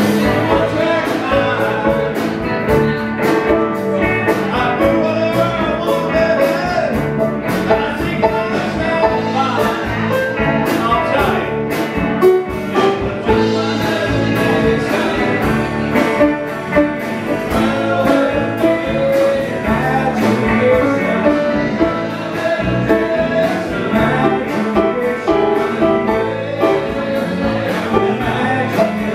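Live rock band playing: electric guitars, bass, Hammond organ and drums in a steady beat, with a sung lead vocal through the PA.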